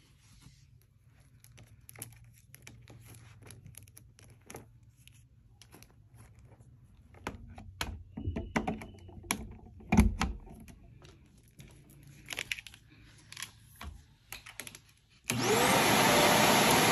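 Clicks, knocks and rustling as a vacuum's power cord is handled and its plug pushed into a wall outlet, with one louder thump about ten seconds in. About fifteen seconds in, a Shark NV380 upright vacuum cleaner is switched on, its motor spinning up with a rising whine and then running loudly and steadily.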